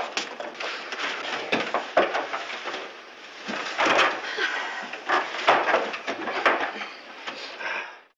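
Footsteps on wooden boards, an irregular run of knocks and scuffs with some heavier steps, cutting off suddenly near the end.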